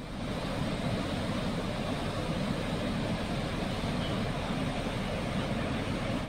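Steady rushing roar of outdoor noise with no distinct events, cutting off abruptly at the end.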